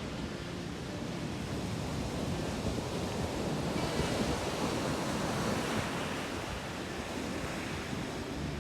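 Sea waves washing onto the shore, swelling as a wave breaks around the middle and then easing off, with wind rumbling on the microphone.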